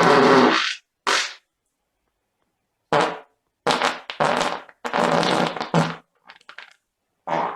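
A string of fart sound effects. A long one ends just under a second in and a short one follows. After a pause of about a second and a half come several more in quick succession, some short and some drawn out, then a few faint sputters and one last fart near the end.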